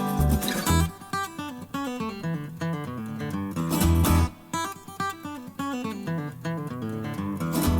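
Background music: acoustic guitar picking a melody over a steady bass beat.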